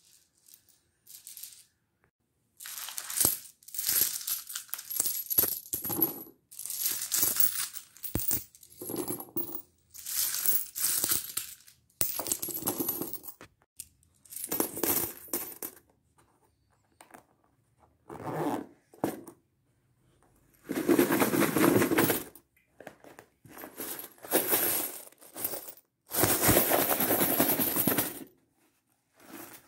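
Handfuls of coins jingling and clinking as they are scooped up and dropped into a boot, in about a dozen separate bursts of a second or two each.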